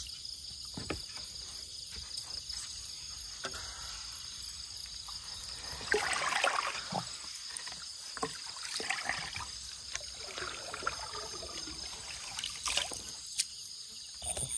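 Water sloshing and splashing in a few short bouts, with small knocks, over a steady chorus of chirring crickets.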